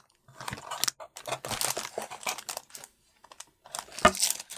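Clear plastic wrapping crinkling in irregular bursts as a plastic-wrapped pencil case is handled and lifted out of a cardboard box, with a soft knock about four seconds in as it is set down.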